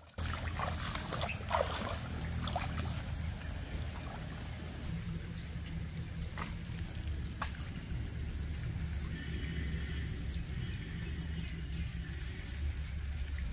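Farm-field ambience: a steady high-pitched insect drone with short repeated chirps, birds calling in the first few seconds, and a steady low rush of irrigation water running along the furrows.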